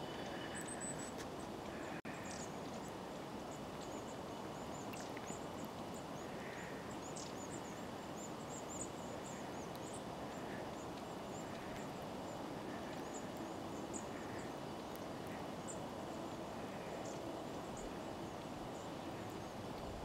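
Long-tailed tits calling: many short, very thin, high-pitched notes scattered throughout, over steady background noise.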